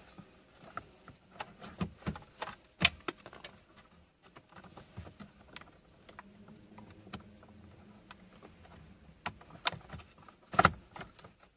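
Clicks, taps and rattles of a car's plastic climate control panel being worked out of its dashboard housing by hand, with two louder knocks, one about three seconds in and one near the end.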